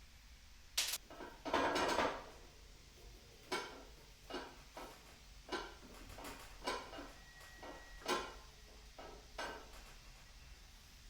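Small steel parts and tools being handled, clinking and clattering against each other and on metal. There is a sharp clink, then a short rattle about two seconds in, followed by a string of about eight separate clinks, one with a brief ring.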